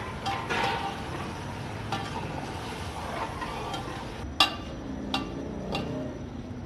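Long metal spatula stirring and scraping mutton karahi in a large aluminium pot as it fries on high flame, with three sharp clinks of the spatula against the pot in the second half, the first the loudest.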